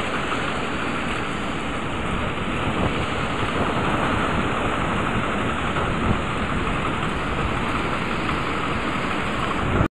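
Ocean surf: waves breaking and white water rushing up the beach, a steady, dense roar of noise.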